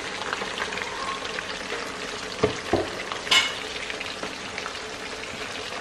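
Steady frying sizzle from chicken 65 deep-frying in oil and a thick masala cooking in a kadai. Two knocks about halfway through, followed by a brief clatter.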